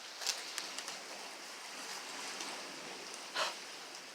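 Faint, steady hiss of light rain, with a few scattered drop ticks and a short louder rustle about three and a half seconds in.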